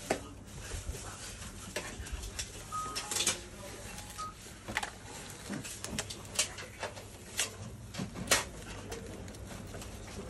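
Handling noise from gloved hands working on a laptop LCD panel: irregular clicks and taps, with rustling of thin plastic gloves.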